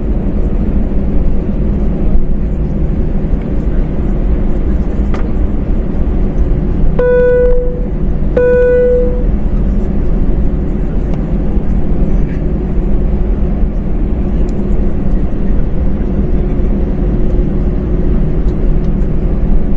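Steady low rumble and hum inside the cabin of an Airbus A321 whose CFM56 engines are running at low power as it taxis to line up for takeoff. About seven seconds in, a cabin chime sounds twice at the same pitch, a second and a half apart.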